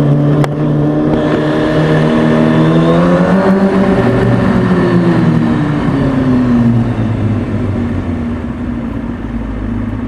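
2003 Kawasaki ZX-6R's inline-four engine running under the rider inside a concrete parking structure. Its pitch rises for a couple of seconds as the bike speeds up, falls away over the next few seconds as the throttle rolls off, then holds at a steady lower note.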